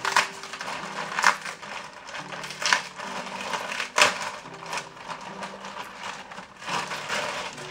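Plastic mailing bag being torn open and rustled by hand, with about five sharp rips, the loudest about four seconds in.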